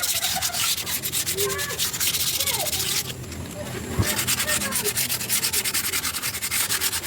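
Rapid back-and-forth strokes of hand sanding on a piece of ironwood, with a brief pause about three seconds in.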